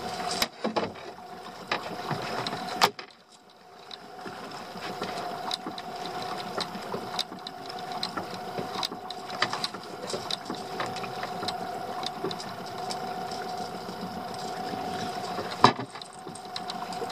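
Steady hum of a small fishing boat's idling engine, with sharp knocks and clatter on the deck as a freshly landed fish is handled in the landing net. The loudest knock comes near the end.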